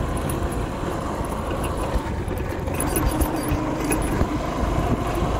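Motorcycle riding along a dirt road: its engine runs steadily under a constant rush of noise, with small rattling clicks throughout.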